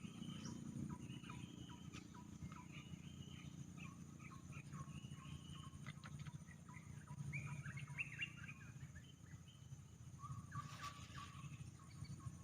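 Wild birds chirping and calling in quick short notes, with a steady low rumble underneath and a brief rush of noise near the end.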